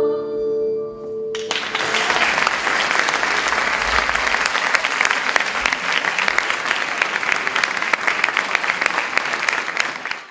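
A singer's last held note with acoustic guitar fades away. About a second and a half in, an audience bursts into steady applause, which cuts off suddenly at the end.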